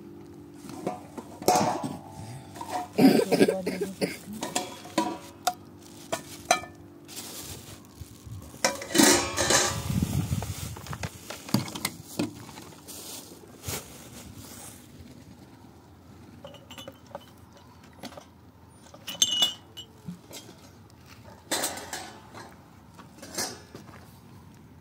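Dishes, pots and utensils clinking and clattering in irregular knocks and scrapes, busiest in the first half, with a short ringing clink a little past the middle.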